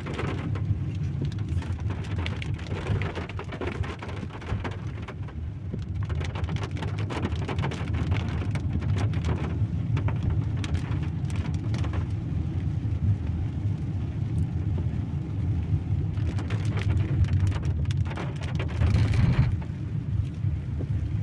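Rain falling, with many separate drops ticking over a steady low rumble. It swells a little near the end.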